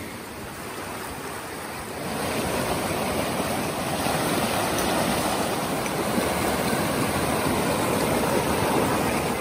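Mountain stream rushing and splashing over rocks and fallen logs: a steady whitewater rush that grows louder about two seconds in.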